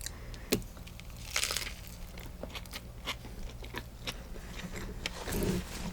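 Close-miked eating of a sourdough sandwich: biting and chewing with crunching of the bread crust and small wet mouth clicks, a sharp click about half a second in and a louder crunch about a second and a half in.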